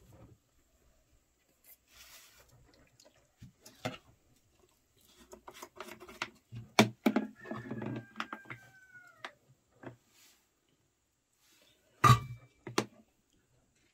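Kitchen utensils and containers being handled: a spoon clinking against an aluminium pot and steel bowl, a run of clatter in the middle with a short falling squeak, and two loud knocks near the end as a plastic jerrycan is handled over the bowl.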